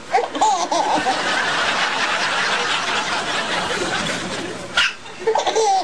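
A baby giggling in short, wavering high-pitched bursts, then a single sharp hiccup from the other baby near the end, answered at once by more giggling.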